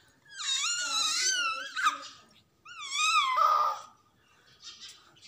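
A baby's high-pitched squealing: two long wavering squeals, the second ending in a breathy rush, then a few faint small sounds.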